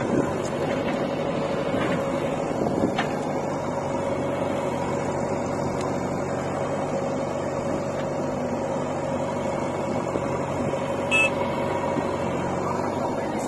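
Diesel engines of a JCB 3DX backhoe loader and an Eicher 485 tractor running steadily, with a couple of short knocks.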